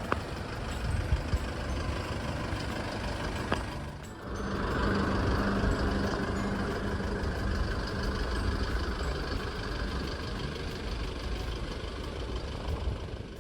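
Motor vehicle running: steady engine and road noise, briefly dropping about four seconds in and then carrying on with a steady low hum.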